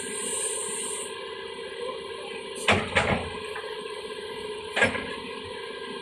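Doosan 180W-V wheeled excavator's diesel engine running steadily under hydraulic load as the boom raises the bucket, with a hiss in the first second. Three sharp knocks come through: two close together about two and a half seconds in and one near five seconds.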